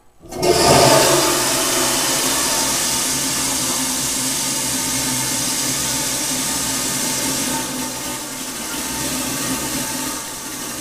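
Stainless steel toilet flushing with a lot of water: a loud rush of water cuts in suddenly just after the start, runs steadily, then eases a little near the end as the bowl keeps filling.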